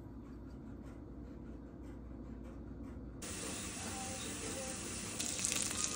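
Sliced shallots and garlic sizzling in oil in an enamelled pot, a steady hiss that starts suddenly about halfway through. Before it there is only a low hum with faint light ticks.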